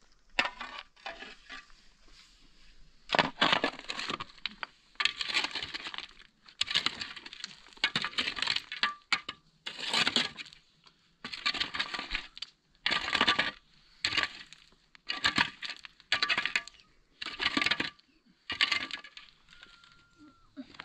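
Shovels and a digging tool biting and scraping into stony, gravelly earth, a stroke about once a second, with stones crunching and the metal blade now and then clinking on rock.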